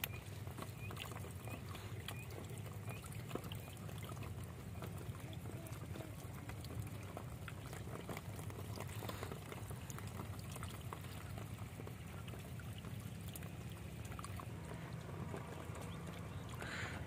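Water pouring and trickling at a bamboo-screen fish trap lined with tarpaulin, with many small wet ticks and patters throughout, over a steady low background noise.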